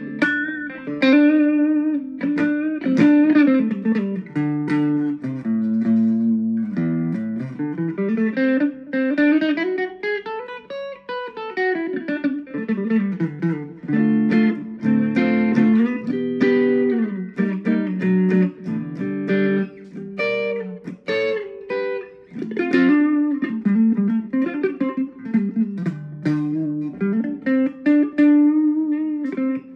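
Ibanez Gio electric guitar played through its Tokai neck humbucker into an amp on the clean channel, which already breaks up a little. It plays a single-note melodic lead, with a long slide up the neck and back down around the middle.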